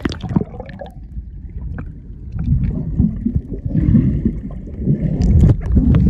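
Water sloshing and splashing close to the microphone as someone moves through a deep waterfall pool, in an irregular, uneven rush with a few sharp knocks.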